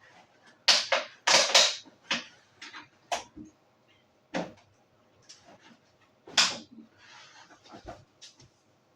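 A series of sharp knocks and clatters from kitchen items being handled, the loudest in the first two seconds and another about six and a half seconds in, with a brief soft rustle shortly after.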